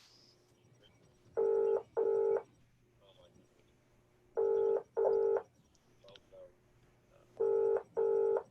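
Telephone ringback tone of an outgoing call: a double ring, two short tones close together, heard three times about three seconds apart while the called line rings unanswered.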